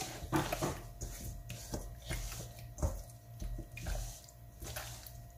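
Hands rubbing and squeezing a whole raw chicken coated in an olive-oil and spice marinade in a stainless-steel bowl, making irregular wet strokes, over a faint steady hum.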